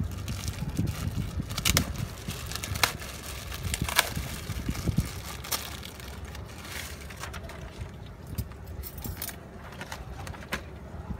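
A few sharp clinks of a metal spoon and utensils against dishes while tipat tahu is being prepared, over a steady low rumble of street traffic.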